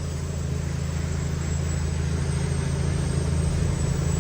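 Cummins X15 inline-six diesel engine of a Kenworth T800 semi truck running steadily under way, with a thin high whine above it, slightly louder toward the end.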